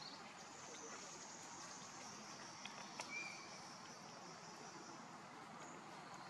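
Faint steady high-pitched insect drone over soft outdoor background hiss, with one brief high chirp about three seconds in.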